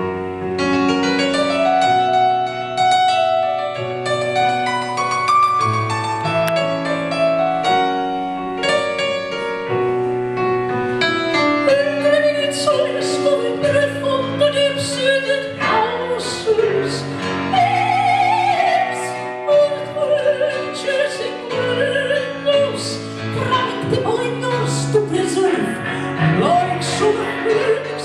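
Live piano playing on its own for about the first twelve seconds, then a high operatic singing voice comes in over it, singing with wide vibrato.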